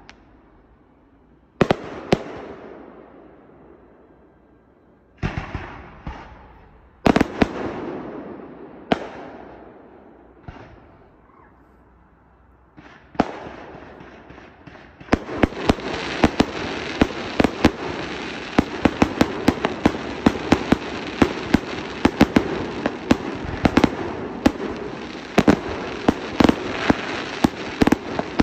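Display fireworks going off: a handful of separate loud bangs, each trailing off in a long echo, then from about halfway through a fast, continuous barrage of cracks and bangs over steady crackling.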